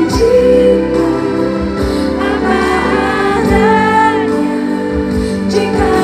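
Live band playing a slow pop ballad over a concert PA, with singing that holds a long wavering note in the middle.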